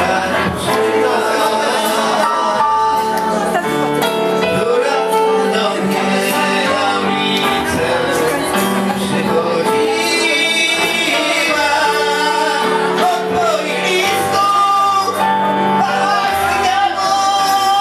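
Live song: a man singing into a microphone to acoustic guitar, over long held chords from a Roland XP-80 synthesizer keyboard.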